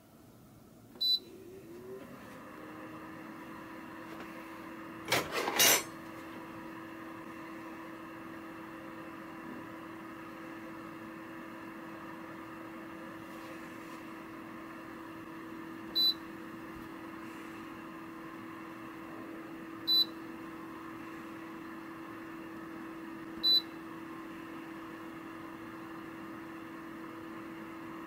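KLOUDIC DH-CS01 compact dehumidifier switched on: a short electronic beep from its control panel, then its fan starts and runs with a steady hum. A brief loud noise comes about five seconds in, and three more single beeps sound later on, a few seconds apart.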